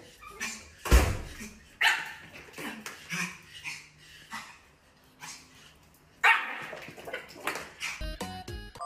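Small fluffy white dog barking in a string of short, sharp barks. The loudest comes about a second in, with a quieter pause in the middle.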